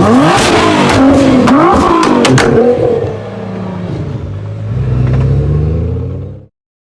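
Tuned 700 hp Nissan GT-R R35's twin-turbo V6 revving hard, its pitch sweeping up and down, with several sharp cracks from the exhaust in the first two and a half seconds. The engine then drops lower, swells again near the end and cuts off abruptly.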